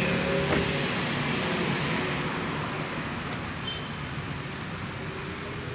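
Outdoor traffic noise: a steady roadway hum with a nearby engine's low drone that fades over the first couple of seconds.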